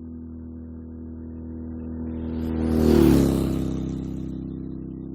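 A motor vehicle passing by. Its engine and tyre noise swell to a peak about three seconds in, then fade as the pitch drops slightly.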